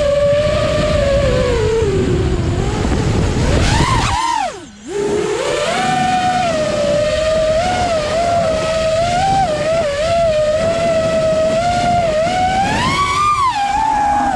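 FPV quadcopter's brushless motors and propellers whining, the pitch rising and falling with the throttle. About four seconds in the whine sweeps up, then plunges and briefly goes quiet as the throttle is chopped for a drop, before the motors spin back up; the pitch climbs again near the end.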